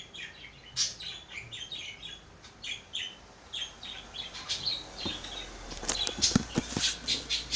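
Small birds chirping in quick, short calls. A few sharp knocks and clicks come in the last couple of seconds.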